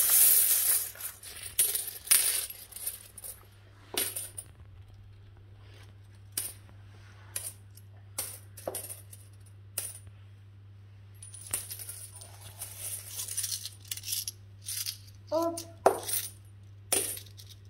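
Metal coins clinking and jingling as a toddler handles and drops them: a dense jingle in the first second or so, then scattered single clinks and short jingles.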